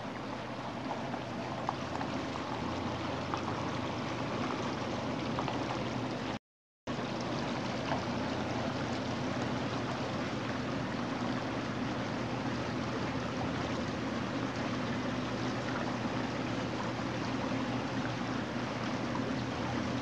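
Steady rushing outdoor noise with a faint low hum, cutting out completely for a moment about six seconds in.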